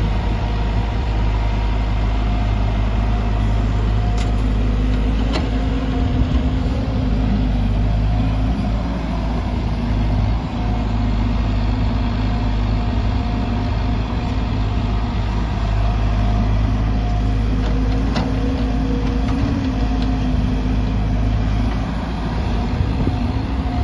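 JCB tracked excavator's diesel engine running steadily: a deep continuous rumble with a held tone above it.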